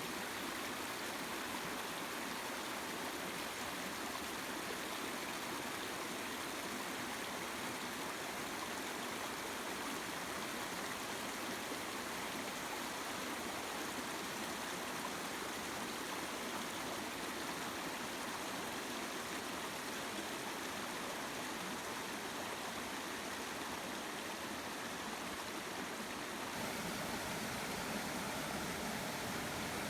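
River water flowing, a steady even rush. About 26 seconds in it shifts to a fuller, deeper rush.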